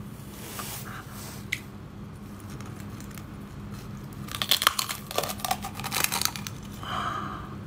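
Spiny sea urchin shell cracking under the teeth as it is bitten open: a few faint clicks, then about four seconds in a dense burst of loud crackling crunches lasting about two seconds.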